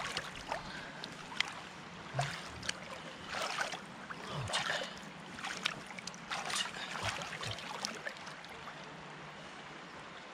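Hands splashing and swishing in shallow river water as a caught chub is released, in irregular bursts over the steady rush of the river. The splashing stops about eight seconds in, leaving only the flowing water.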